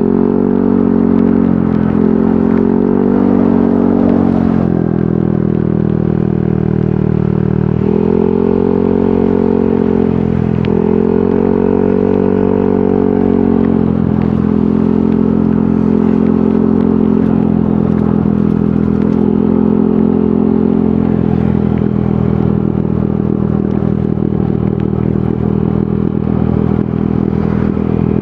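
Yamaha NMAX 155 scooter's single-cylinder engine running through an aftermarket VMAX Onyx muffler. The engine note rises and falls twice around the middle, then holds steady.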